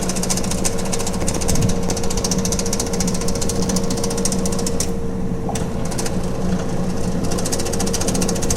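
Hitachi NW-6AZ washing machine's non-inverter, belt-driven motor running empty with a steady hum and a fast, continuous rattle. The rattle eases for a couple of seconds near the middle. It is the abnormal noise of a well-worn machine.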